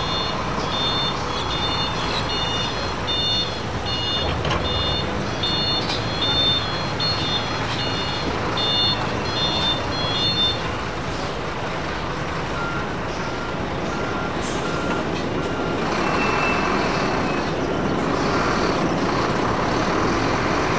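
Boeing 747 freighter's four jet engines making a steady, loud roar as it touches down and rolls out on the runway. A high electronic beep repeats about twice a second through the first half and then stops.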